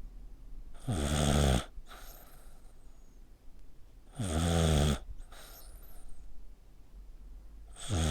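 A sleeping pet snoring in a human-like way: three loud rasping snores about three and a half seconds apart, each under a second long, with softer breathing between. It sleeps with its neck pressed tight, which the owner wonders is uncomfortable.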